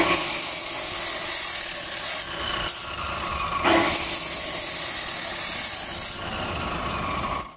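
Abrasive chop saw's cut-off wheel grinding through steel bar stock, a loud, high grinding in two cuts with a short break a little after two seconds in. The grinding eases off about six seconds in.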